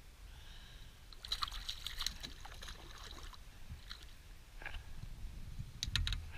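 Water splashing and crackling beside an inflatable boat as a rainbow trout is released by hand over the side. There is a dense patch of splashes early on, a louder clatter with a thump near the end, and a low wind rumble throughout.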